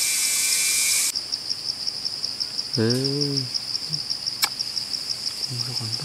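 Insect trilling steadily in rapid, even pulses at a high pitch, after a louder high hiss that cuts off abruptly about a second in. A short voice sounds about three seconds in, and a single sharp click about a second and a half later.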